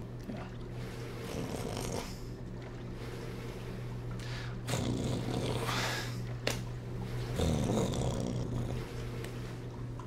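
Empty dishwasher running: a steady motor hum under water swishing and spraying inside the tub, with louder surges about five and seven and a half seconds in and a short click between them.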